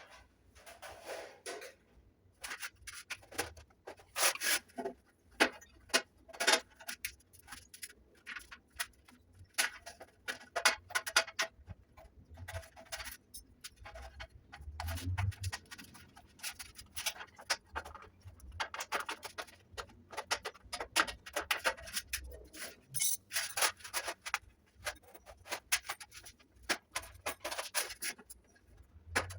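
Hand shears cutting a circle out of a sheet-metal plate: repeated sharp snips and clicks at an uneven pace, a few each second.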